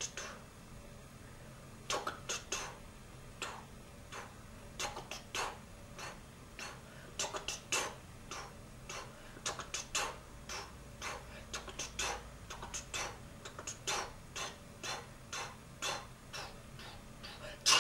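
An irregular series of sharp clicks and taps, often in quick pairs or clusters, over a faint steady low hum.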